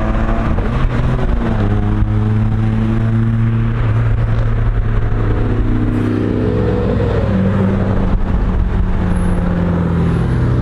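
Car engine running under way, heard from inside the cabin, its note rising and falling in pitch as the throttle changes.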